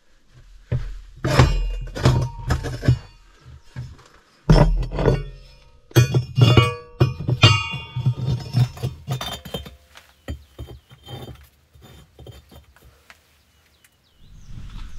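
A cast-iron fire grate and firebricks being set into a brick stove's firebox: a run of clinks and thunks of iron and brick knocking together, some ringing briefly.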